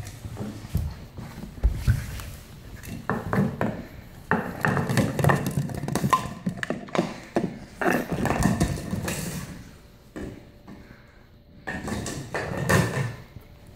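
An empty plastic water bottle being bitten and batted across a hardwood floor by a French bulldog puppy, in irregular bursts of knocks and crackles with short pauses between.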